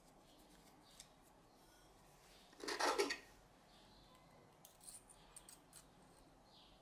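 Small steel tools being handled: a screwdriver shaft scraping and clinking against a homemade steel countersink collar and drill bit, with one short rattling scrape about three seconds in and a few light metallic clicks after it.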